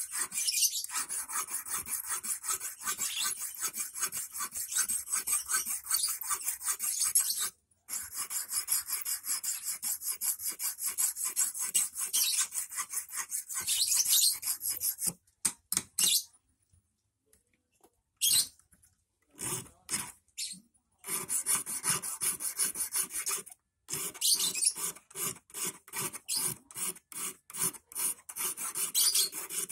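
Small hand file rasping in quick back-and-forth strokes on the end of a 2.5 mm rust-proof steel wire, sharpening the point of a hook. The filing breaks off briefly about seven seconds in, and around the middle there are several seconds with only a few scattered strokes before steady filing resumes.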